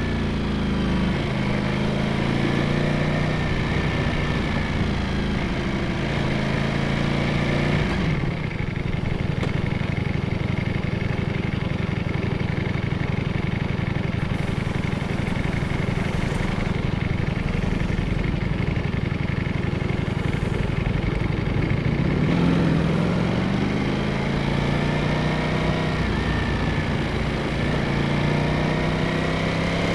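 Ducati Streetfighter V4S's 1,103 cc V4 engine and exhaust, heard from the rider's position. The engine pitch shifts through the first several seconds, settles into a steady low rumble from about eight seconds in, then rises again as the bike accelerates through the gears about twenty-two seconds in.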